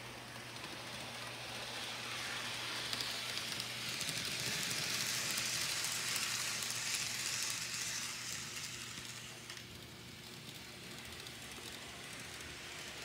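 Kato N scale Amtrak passenger train running on the model railroad track: a faint, steady hiss and rattle of its small wheels and motor, growing louder through the middle as the train passes close and fading near the end, over a steady low hum.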